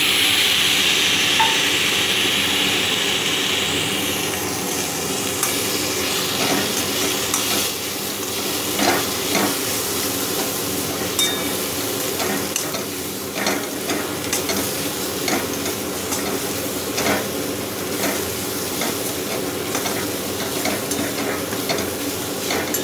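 Pumpkin chunks and sprouted chickpeas frying in oil in a metal wok. The sizzle is louder for the first few seconds, just after the chickpeas go in, then settles to a steady sizzle while a slotted metal spatula scrapes and clacks against the pan in repeated stirring strokes.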